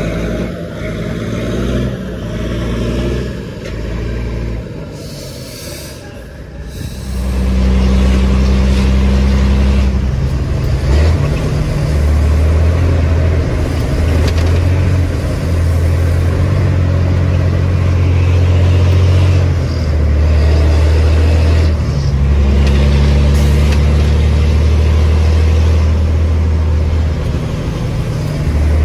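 Semi-truck's diesel engine pulling away under load, heard inside the cab while the driver works a manual gearbox. It turns loud and steady about seven seconds in, with brief dips and changes in pitch at the gear changes.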